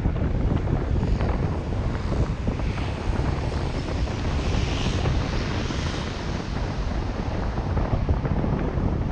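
Steady low rumble of wind buffeting the microphone and road noise from a car driving along a city street. A hiss swells and fades about halfway through.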